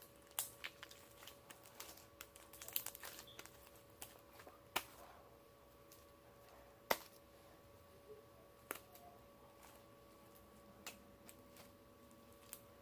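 Light handling sounds: scattered sharp clicks and taps, the loudest about five and seven seconds in, with faint crinkling over a low steady hum.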